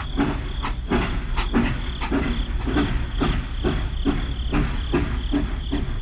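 Battery-powered toy steam locomotive running on its plastic track: a steady motor hum with regular clicking, about three clicks a second.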